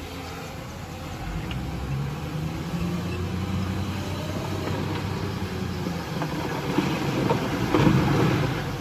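Diesel engine of a heavy earthmoving machine running steadily, with a louder, noisier surge lasting about a second near the end.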